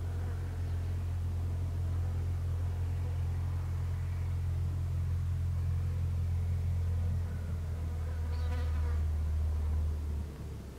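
A steady low hum that drops away sharply near the end.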